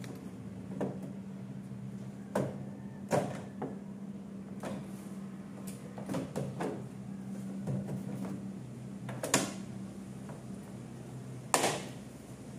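Scattered clicks and light knocks of small scooter parts, the plastic pin locks and screws from the body panels, being handled and set down, with two sharper knocks in the second half. A steady low hum runs underneath.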